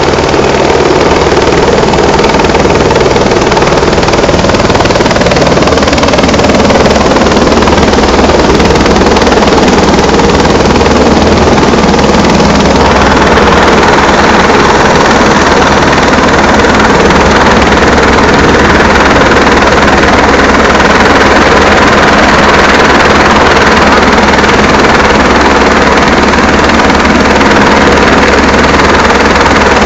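Rescue helicopter hovering close by during a winch rescue: loud, steady rotor and engine noise with a low, fast throb from the blades. The higher part of the noise grows brighter about thirteen seconds in.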